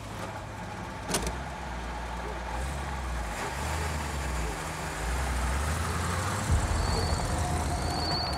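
Old pickup truck's engine running with a low, steady rumble, a single sharp click about a second in, and growing louder from about six seconds in as the truck drives off.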